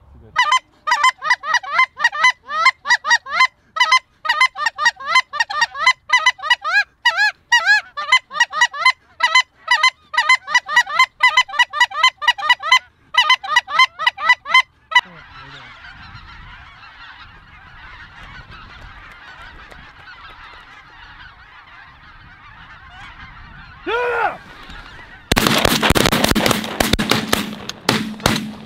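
A flock of snow geese calling: rapid, overlapping high-pitched honks and yelps for about fifteen seconds, cutting off suddenly into a softer wash of many distant calls. Near the end there is a loud burst of noise lasting about three seconds.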